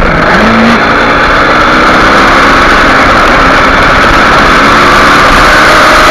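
Kawasaki Ninja 250R's parallel-twin engine running hard at high revs, dipping briefly near the start and then climbing gently again. It sits over a loud, steady rush of wind on the onboard microphone.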